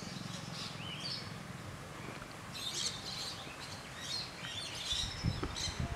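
Birds chirping outdoors, short calls scattered through the whole stretch over a faint background.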